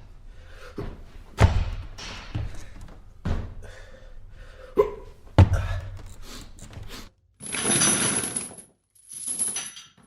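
Gym equipment being handled: a series of knocks and heavy thuds, then two rushing, hissing strokes of about a second each near the end.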